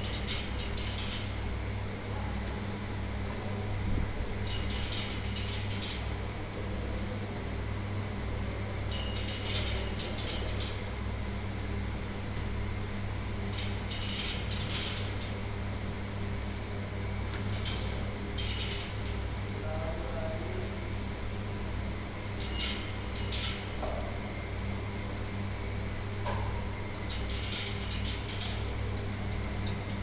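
Conveyor dishwasher with its motorised unloader running: a steady machine hum, with short bursts of dishes clinking about every four to five seconds.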